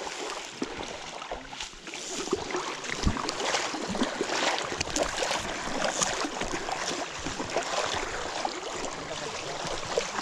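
Shallow river water sloshing and lapping around a wading angler's legs, with irregular small splashes and knocks close to the microphone.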